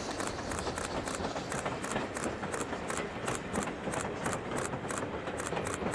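Train passing, with a steady rhythmic beat of about three to four a second.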